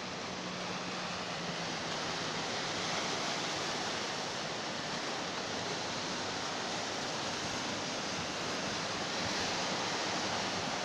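Sea waves breaking and washing over shoreline rocks, a steady rushing surf.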